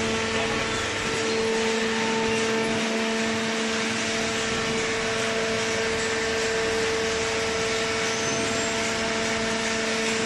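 Cardboard shredder and baler machinery running, a steady electric-motor hum holding one pitch over constant mechanical noise.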